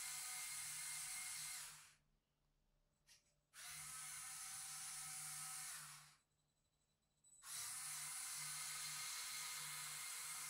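Electric drive motors and gear train of a battery-powered LEGO Technic 6x6 truck model, whining as it drives along a table. It runs three times and stops twice in between for about a second each time.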